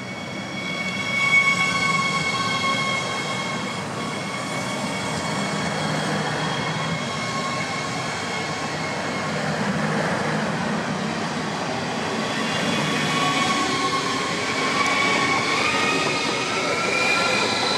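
Siemens Desiro HC electric multiple unit (class 462) running in along a station platform: wheels rumbling on the rails, with the whine of its electric drive as several steady tones. The tones step upward in pitch near the end.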